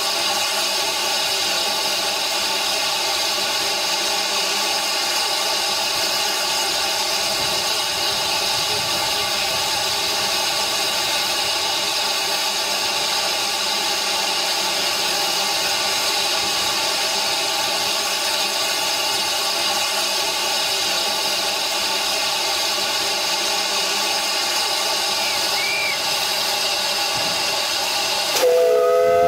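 Steam hissing steadily from the standing narrow-gauge steam locomotive Ffestiniog No 2 "Prince", with a few steady pitched tones in the hiss. Near the end a brief, louder pitched sound cuts in.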